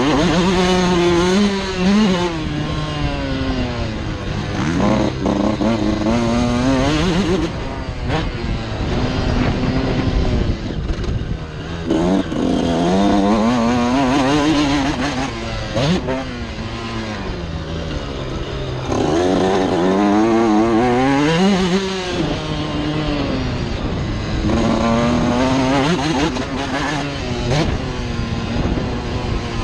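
Suzuki RM 125 two-stroke single-cylinder motocross engine ridden hard, revving up and dropping back again and again as the rider accelerates, shifts and backs off. Each rise in pitch lasts a few seconds.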